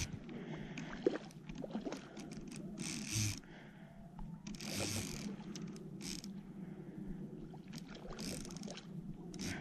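Fly reel clicking, its click-and-pawl drag ticking in short runs as a hooked trout is played, with two brief louder rasping bursts about three and five seconds in.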